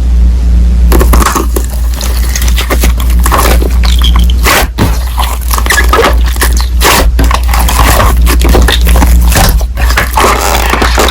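Loud, distorted scraping and crackling noise over a steady low hum, jagged and irregular, with a few brief dropouts: a harsh, clipped meme sound effect.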